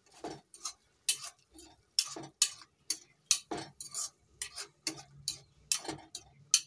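Steel spoon clinking and scraping against a black kadai while stirring prawns in masala, in quick irregular strokes about two or three times a second.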